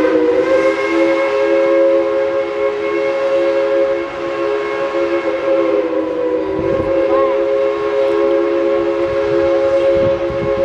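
Steam locomotive's chime whistle sounding one long, steady blast, several notes together.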